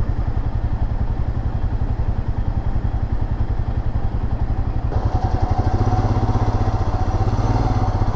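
Motorcycle engine running at low revs, heard from on the bike, with a steady low pulsing. About five seconds in it grows a little louder and a steady whine joins, as the bike picks up.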